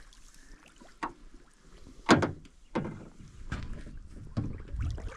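Water splashing and sloshing beside a boat as a large barramundi is held in the water for release. A few sharp splashes stand out, the loudest about two seconds in.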